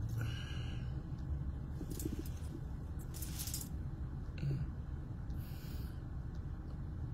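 A few short hissing breaths close to the microphone, over a low steady rumble.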